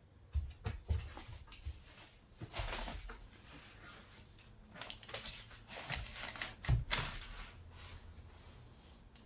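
Scattered knocks and clicks with a short scrape about two and a half seconds in: hands working on a wooden door frame being fitted into its opening.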